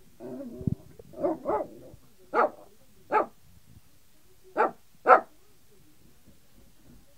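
Small long-haired white dog barking to play: a short low grumble, then six short sharp barks, some in quick pairs, spread over about five seconds.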